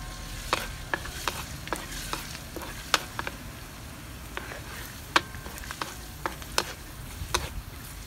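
Chopped garlic frying in soybean oil in a wok, sizzling steadily, while a wooden spatula stirs it and clacks against the pan now and then.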